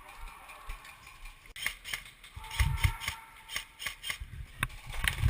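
Airsoft guns firing: a quick, irregular string of sharp mechanical snaps and clicks that starts about a second and a half in.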